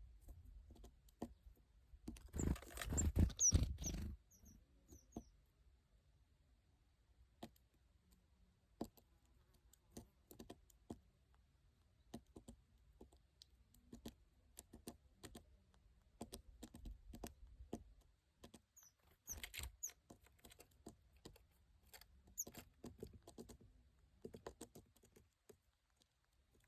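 Small bird pecking, tapping and scratching, a long run of scattered light clicks, with two louder rustling stretches about three seconds in and near twenty seconds, each carrying a few short high chirps.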